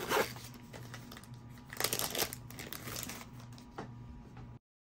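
Thin plastic coin bags and sleeves crinkling as they are handled and shuffled, loudest about two seconds in; the sound cuts off suddenly near the end.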